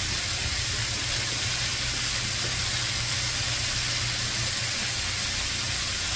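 Curry sauce bubbling at a steady boil in a pot, a constant sizzling hiss with a steady low rumble underneath.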